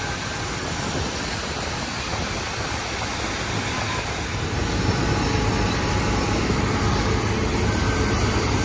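Steady jet airliner noise from a Boeing 737 MAX 8. A deeper rumble comes in about halfway through and stays.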